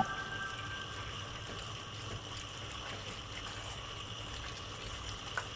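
Chop suey vegetables simmering in the pan: a steady, soft hiss of liquid bubbling and sizzling, with one small click near the end.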